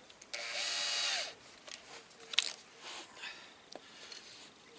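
Power drill runs for about a second, its motor whine rising as it spins up and dropping as it stops. A sharp click follows about a second later.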